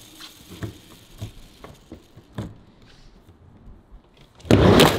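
Scattered faint clicks and taps of a skateboard balanced on the coping. About four and a half seconds in, a sudden loud rush as a tiny hand-skate deck on full-size skateboard trucks and wheels drops in and rolls down the quarter-pipe ramp.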